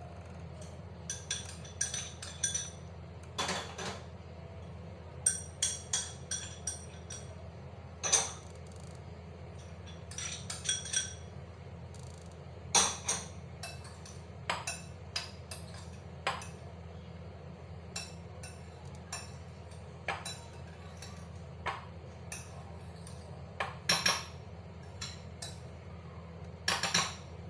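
Spoon clinking and scraping against a glass bowl as chopped vegetables are stirred, in irregular sharp clinks over a steady low hum.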